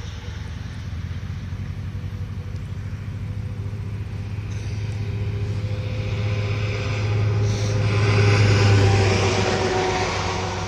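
2013 Toyota Tundra with straight-piped exhaust doing a burnout: the engine runs hard and steady, and the tyres squeal as they spin. The sound grows louder to a peak about eight seconds in, then eases off.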